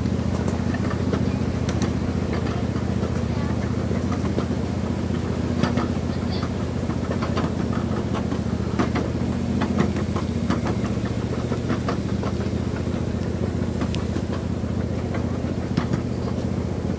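A ride train's engine running at a steady low drone as the train rolls along, with scattered clicks and clacks.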